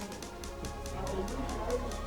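Background music with a steady, fast ticking beat.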